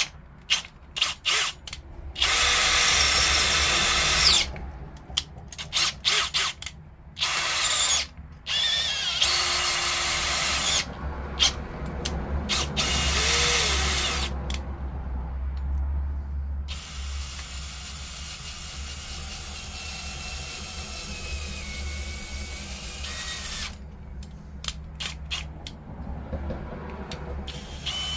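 Cordless drill driving a 13/32-inch bit into a stripped engine head-bolt hole, boring it out for a HeliCoil thread insert. The drill runs in stop-start trigger bursts, some of which rise in pitch as the motor spins up, with one longer, steadier run in the middle.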